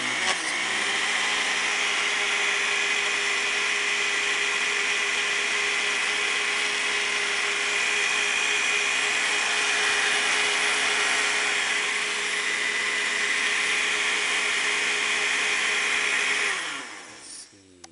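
Countertop blender motor running steadily as it blends strawberries, yogurt and milk into a smoothie, spinning up at the start. It cuts off and winds down about a second and a half before the end.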